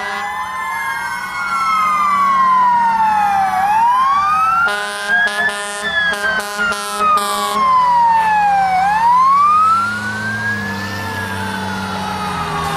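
Fire truck siren wailing, its pitch rising and falling slowly over several seconds. About five seconds in, a quick run of about six short horn blasts sounds over it, with a truck engine running underneath.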